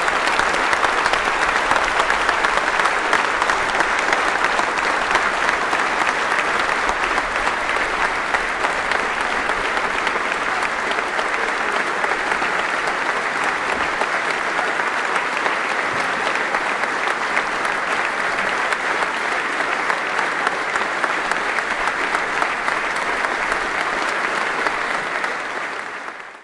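A large stadium crowd applauding, a dense steady clatter of many hands clapping that fades out at the end.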